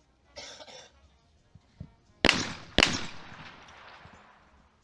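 Two shotgun shots in quick succession, about half a second apart, each followed by a long echoing decay: a skeet shooter firing at a pair of clay targets, one shot per target.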